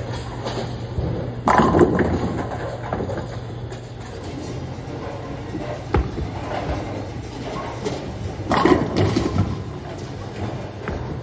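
Bowling pins crashing as a 15-pound reactive-resin bowling ball hits them, about a second and a half in. Near the middle a ball thuds onto the lane on release and rolls, and a second loud pin crash follows shortly before nine seconds, over the steady low hum of a bowling alley.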